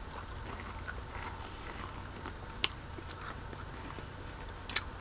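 Quiet chewing of a crisp waffle cone, with one sharp crack about two and a half seconds in and a few more clicks near the end.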